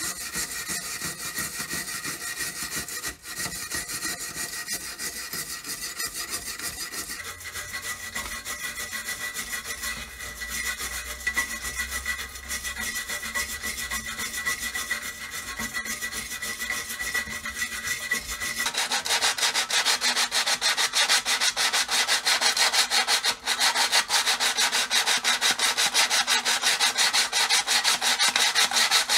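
An abrasive tool scraping continuously on the lamp's metal, taking off rust or old finish. About two-thirds of the way through the scraping becomes louder and harsher.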